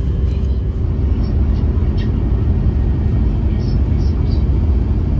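Steady low rumble of a Kyushu Shinkansen 800 Series train running, heard inside the passenger cabin, with a faint steady hum over it. A few light ticks come through as the lid of a bento box is lifted off.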